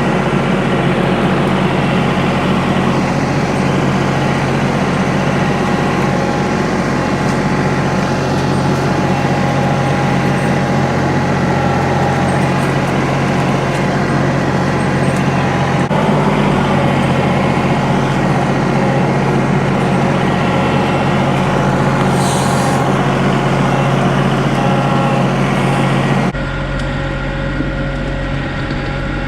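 John Deere 2032R compact tractor's diesel engine running steadily under work. There is a brief hiss about three-quarters of the way through, and near the end the engine sound drops and changes.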